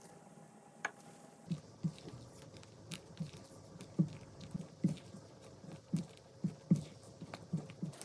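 Silicone spatula stirring and pressing thick chocolate ganache in a glass bowl: a run of soft, wet squelching strokes, about two a second, starting about a second and a half in, sped up to double speed. Before it, a single sharp tick.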